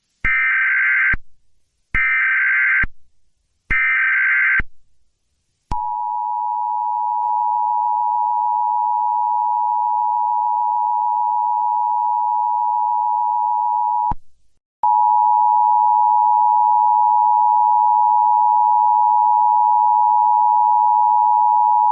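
Emergency Alert System tones: three short bursts of SAME header data, about a second apart, then the two-tone attention signal held for about eight seconds over a hiss of static. After a brief break the attention signal comes back clean and steady.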